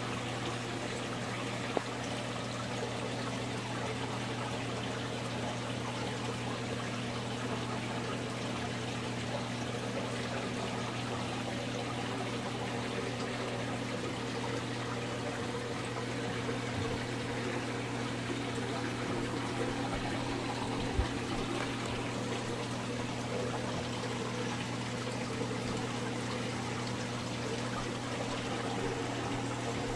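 Saltwater aquarium's circulation running: a steady wash of trickling, pouring water over a low pump hum. Two faint ticks, about two seconds in and about twenty-one seconds in.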